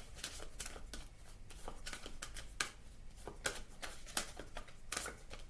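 A deck of zodiac sign cards being shuffled by hand, a run of soft, irregular card clicks and slaps.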